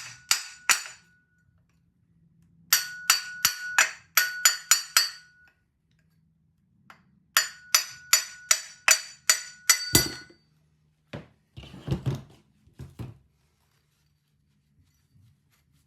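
Light hammer taps on the propeller of a British Seagull outboard, tapping it loose from the shaft. The taps come in three quick runs of about three or four a second, each tap ringing with a short metallic tone. A few duller knocks follow about ten to thirteen seconds in.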